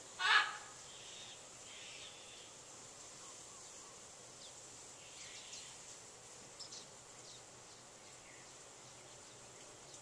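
A macaw gives one loud, harsh squawk lasting under half a second near the start. After it come only faint short chirps and a steady high hiss.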